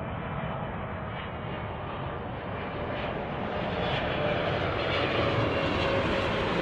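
Boeing 777 freighter's GE90 turbofan engines on final approach with gear down: a steady jet rumble that grows louder as the airliner comes closer, with a thin whine that slides slowly down in pitch.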